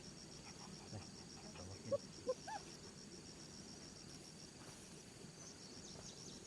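Insects chirping in a rapid, even pulse, high-pitched and faint. About two seconds in, a few short pitched calls stand out as the loudest sounds.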